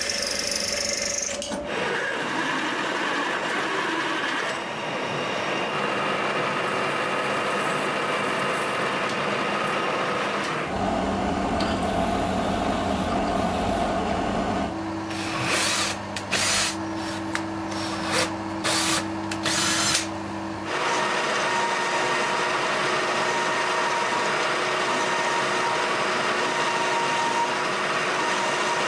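Drill press cutting metal: a steady grinding as the cutter works through square steel tubing, then drilling into a steel sprocket with several short, sharp bursts. In the last seconds another machine tool runs with a steady hum.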